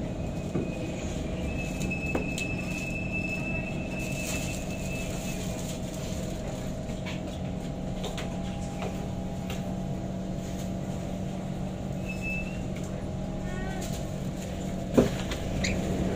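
Inside an SMRT C151 metro car coming to a stop at a platform: a steady hum from the train's running gear and air conditioning, with a thin high whistle for a few seconds near the start. About fifteen seconds in, a single sharp clack comes as the doors open.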